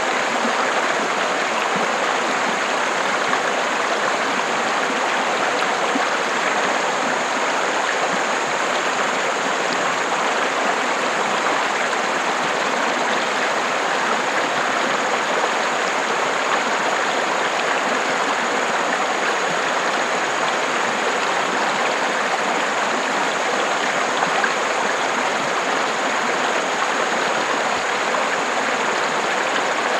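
River water flowing, a steady, even rushing sound.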